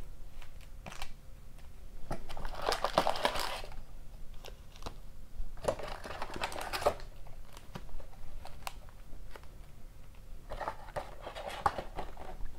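Foil-wrapped trading-card packs crinkling and rustling as they are handled and lifted out of a cardboard box, in three bouts (about two, six and eleven seconds in), with light clicks and taps of cardboard between them.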